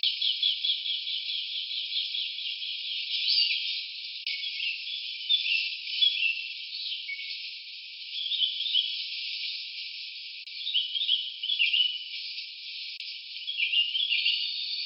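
Forest ambience: short high chirping phrases of quick rising and falling notes recur over a steady high hiss.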